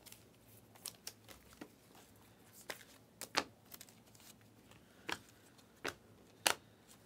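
Panini Prizm basketball cards being flipped through by hand: a string of short, sharp clicks and snaps at irregular intervals as each card is slid off the stack.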